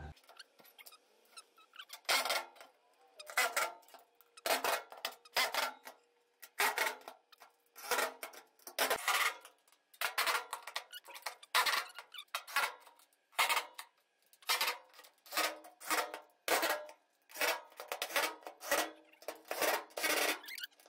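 Allen key working the bolts of a steel E-track rail: a run of short metallic clicks and scrapes, about one every second, as the key turns in the bolt heads and is shifted against the rail.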